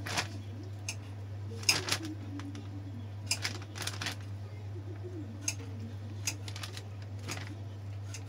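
Plastic zip-lock bags crinkling and clicking in short, irregular bursts as mango slices are packed into them, over a steady low hum.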